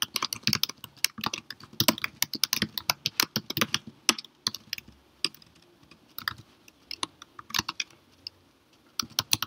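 Computer keyboard typing: a fast run of keystrokes for about the first four seconds, then scattered single key presses with short gaps.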